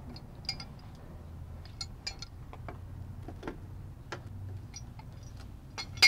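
Scattered light metallic clicks and clinks as a pipe wrench works a bicycle's threaded bottom bracket cup loose, ending in a sharper clink, over a faint low hum.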